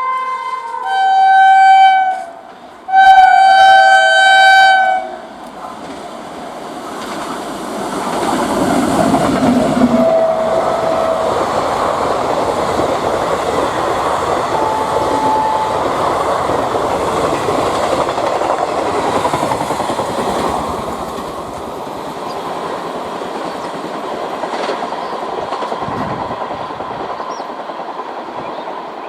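WAP-7 electric locomotive's air horn sounding three blasts, the last the longest and loudest at about two seconds, followed by an express train speeding past: a steady rush and clatter of coach wheels on the rails that peaks a few seconds after the horn and eases off near the end.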